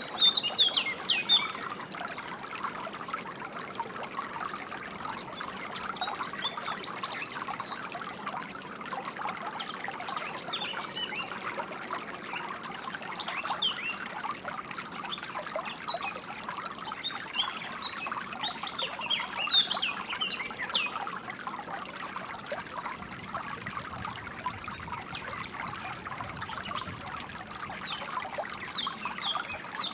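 Small stream trickling and babbling steadily, with songbirds chirping in short high calls throughout, most busily about a second in and again around the middle.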